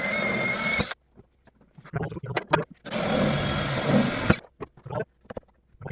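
Power drill running as it bores a hole through a boat hull, in two spells: one that stops about a second in, and a second of about a second and a half near the middle. Short clicks and knocks of handling fall between and after.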